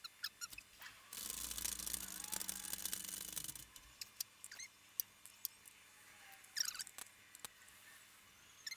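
Light clicks and handling noises from a rubber timing belt being worked over the engine's cam and crank sprockets, with a scraping rustle lasting about two and a half seconds starting about a second in.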